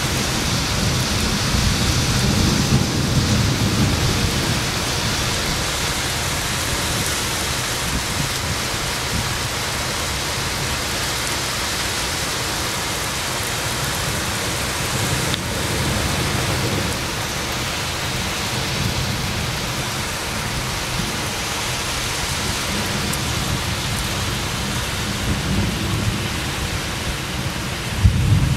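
Heavy downpour falling steadily in a thunderstorm, with low rumbles of thunder in the first few seconds and a louder rumble near the end.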